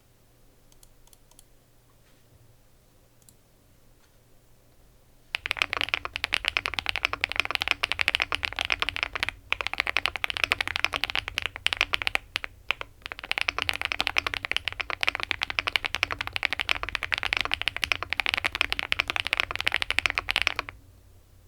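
Quiet for about five seconds, then fast typing on a Yunzii AL75 mechanical keyboard with blue-gray tactile switches, double-shot PBT cherry-profile keycaps, a polycarbonate plate and case and plate foam. It makes a dense stream of very marbly, deep, super crisp keystrokes, broken by two brief pauses, and stops shortly before the end.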